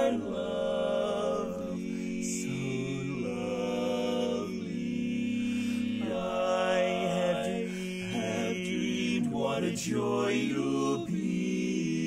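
Male barbershop quartet singing a cappella in four-part close harmony, holding sustained chords that shift every second or two.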